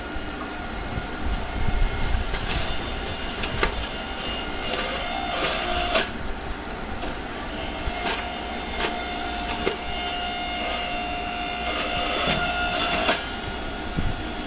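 Stainless-steel centrifugal juice extractor running with a steady motor tone while carrots are pushed down its feed chute, the shredding disc grinding them with irregular rattles and clicks.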